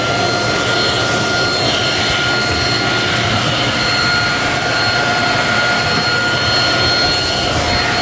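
Simplus handheld vacuum cleaner running steadily with a high motor whine while its crevice nozzle sucks along a wall-and-ceiling corner.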